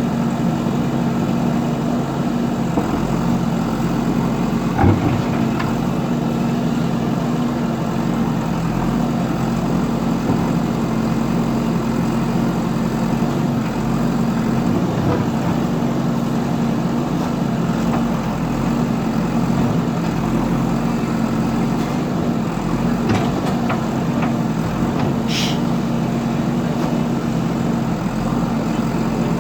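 Heavy diesel engine of a JCB machine running steadily, with a single knock about five seconds in and a brief high squeal near the end.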